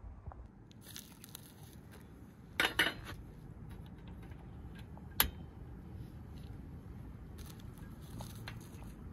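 Handling of a portable gas stove and its metal pot: a short clatter about two and a half seconds in, then a single sharp click about five seconds in, typical of the stove's ignition knob being turned.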